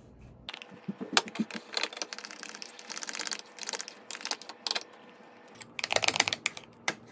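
A metal spoon and a silicone spatula clicking and scraping against glass mixing bowls as thick cream is stirred. The taps come in quick runs, densest about two to four seconds in and again around six seconds.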